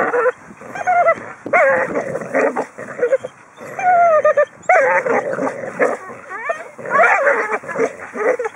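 Dogs whining and yipping while playing tug-of-war on a tug strap: loud, high cries that waver up and down, coming in quick runs one after another.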